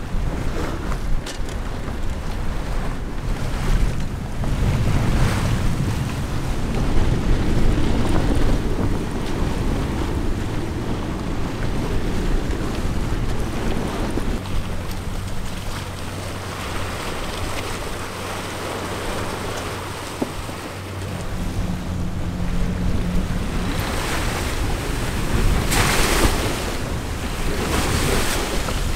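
Wind and choppy sea rushing past a sailboat's hull under way, with wind buffeting the microphone. The hiss of water and spray grows louder near the end as the bow throws up spray.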